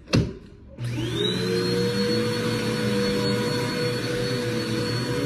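Dirt Devil Vigor Cyclonic Pet vacuum cleaner switched on with a sharp click, its motor spinning up with a quickly rising whine about a second in and then running steadily.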